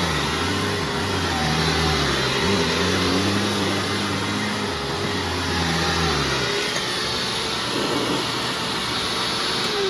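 Hoover WindTunnel Self-Propelled Ultra upright vacuum running on test with a newly fitted brushroll. A lower hum rises and falls in pitch in slow waves until about six and a half seconds in; near the end the motor is switched off and its sound starts falling away.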